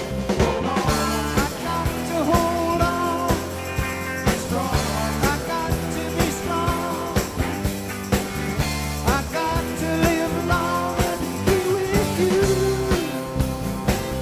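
Rock music with a steady beat laid over the footage.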